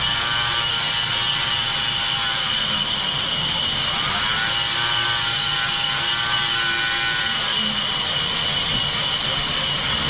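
Vertical band saw mill running steadily, a loud even machine whir with a strong high hiss.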